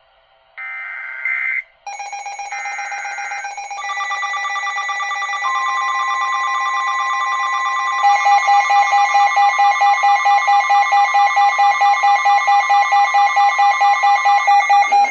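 Emergency Alert System header: one-second bursts of screeching digital data, then a layered alarm of several steady tones that thickens in steps and, from about eight seconds in, pulses about three times a second.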